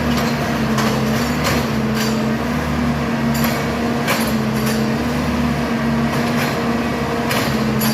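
Railroad track work machine's engine running steadily, with irregular sharp knocks and clanks every second or so.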